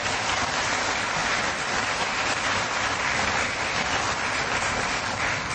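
Audience applauding, a steady dense clatter of clapping that starts to die away near the end.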